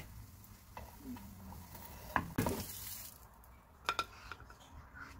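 Egg-dipped toast sizzling in a nonstick frying pan, with a couple of spatula knocks and scrapes against the pan about two seconds in. The sizzle fades about three seconds in, and a short knock near four seconds comes as the toast goes onto a plate.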